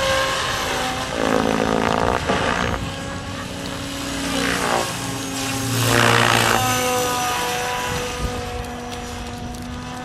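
Electric HD-750 RC model helicopter flying 3D aerobatics, its motor and rotor whine gliding up and down in pitch. It grows louder twice, about a second in and again about six seconds in.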